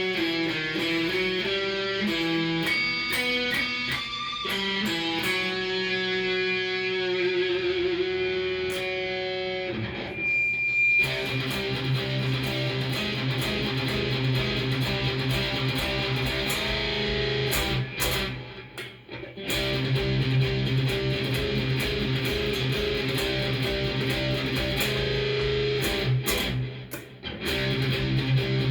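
Cort S series electric guitar played through a Fender amp. For about ten seconds it plays clear single-note melodic lines, including a held note wavering with vibrato. It then moves to denser, fuller chord playing, broken by brief pauses twice.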